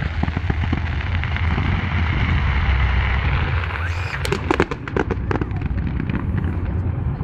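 Fireworks display: a dense run of crackling with a low rumble underneath, then a string of sharp bangs from about four seconds in.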